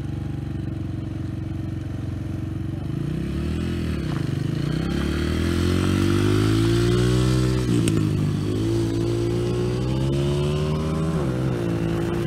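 Dirt bike engines: a steady idle, then a bike accelerating nearby, its engine note rising and dropping back several times.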